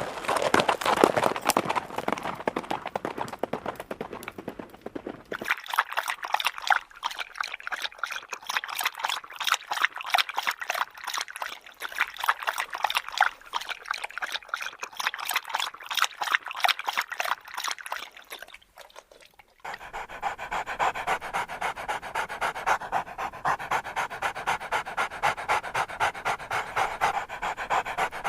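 A dog panting in quick, even breaths, with a brief pause about 19 seconds in.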